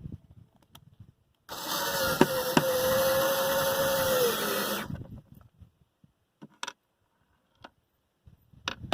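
Power drill running for about three seconds, drilling through a cutting board, its motor whine steady and then dropping as it stops. A few faint clicks follow.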